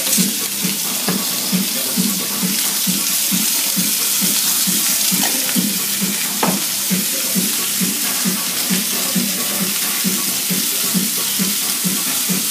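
Shrimp sizzling in a hot frying pan over a gas burner: a steady hiss, with a low pulsing repeating two or three times a second underneath.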